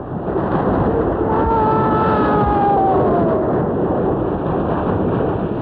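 Rushing whitewater of river rapids, a loud steady roar. A faint falling call or tone sounds over it from about a second and a half in.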